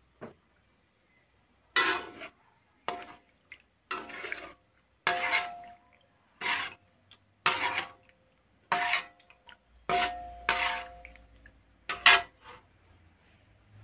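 Metal spatula stirring soup broth in a wok, scraping and knocking against the pan about once a second, several strokes with a short metallic ring.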